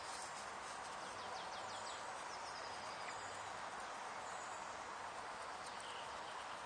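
Steady woodland background noise with a short series of faint, high bird chirps about a second and a half in. The stirring of the cup makes no clear sound.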